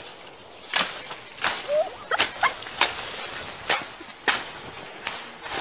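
Dry leaves and twigs crackling and snapping as a dog digs and pushes its head into a burrow in leafy ground: about eight sharp, irregular snaps.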